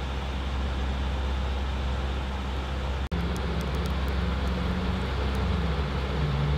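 Narrowboat's diesel engine running steadily under way: a low rumble with an even hiss over it. The sound drops out for an instant about three seconds in.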